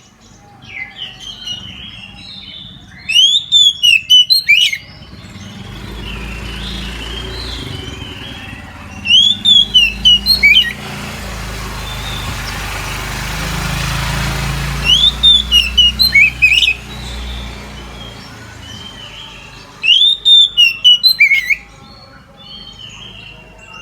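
Oriental magpie-robin (kacer) singing at full voice: four loud bursts of rapid, sweeping whistled notes a few seconds apart. A low background noise swells and fades through the middle.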